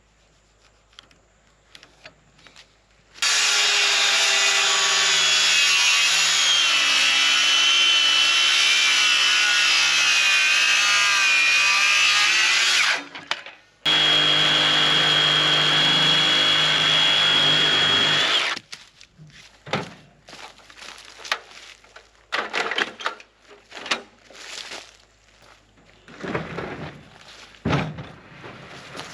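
Power saw cutting the top off a wooden post: a long cut with the motor's pitch wavering under load, a brief stop, then a second run at a steady high whine. After that come scattered knocks and scraping as the saw is set down and the wood is handled.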